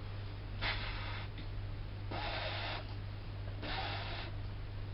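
A woman blowing out three long puffs of breath, about a second and a half apart, as if blowing up a balloon.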